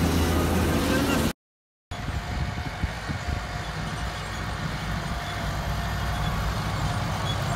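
A diesel engine runs with a steady low hum and cuts off abruptly about a second and a half in. Then a green Fendt tractor's diesel engine works under load, quieter and rougher, as it pulls a tillage implement across the field.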